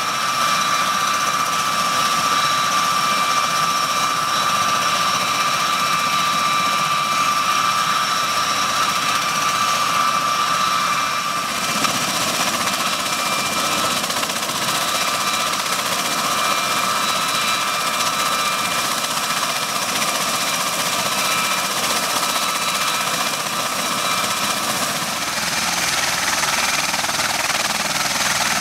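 MV-22 Osprey's Rolls-Royce AE 1107C turboshaft engines and proprotors running on the ground: a steady high turbine whine over rotor noise. The whine drops in pitch about twelve seconds in, and the low rumble grows near the end.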